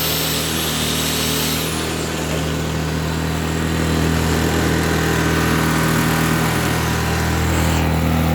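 Blackridge BRG 800 800-watt inverter generator's small engine running at a steady pitch, a little louder from about halfway through, with a faint high whine that glides down and fades in the first two seconds. The owner puts its less-than-perfect running down to years-old stale fuel.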